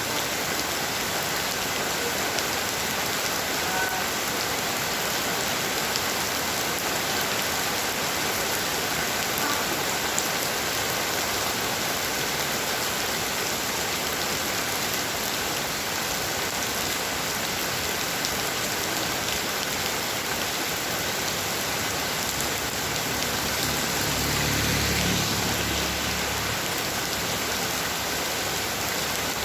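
Heavy rain falling steadily, a dense even hiss of drops on surfaces. About three-quarters of the way through, a low rumble swells briefly under the rain and fades.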